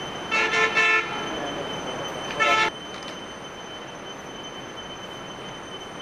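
Piglets squealing loudly in two short bouts, a broken run of calls under a second in and a shorter one about two and a half seconds in, over a steady background noise.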